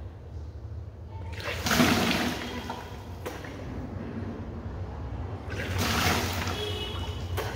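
Water gushing from a person's mouth and splashing down as she vomits it up with fingers down her throat, in the yogic water-vomiting cleanse (Kunjal Kriya). Two surges come, about two seconds in and again near six seconds.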